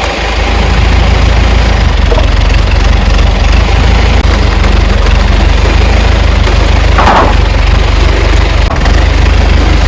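Tractor engine running steadily, close and loud, with a short higher-pitched sound about seven seconds in.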